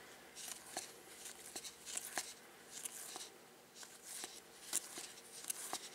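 A stack of Topps Stadium Club baseball cards being thumbed through by hand. Each card slides off the front of the stack with a short, soft papery swish or click, roughly every half second and unevenly spaced.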